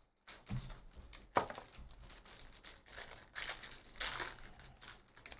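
Crinkling and tearing of a trading-card pack wrapper being ripped open by hand, with rustles and a sharp click about a second and a half in.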